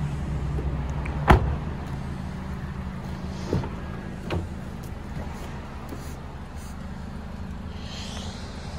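A 2011 Acura TSX SportWagon's rear door is shut once, a sharp bang about a second in and the loudest sound. It is followed by two lighter clicks a few seconds later as the front door handle is pulled and the latch releases, over a steady low hum.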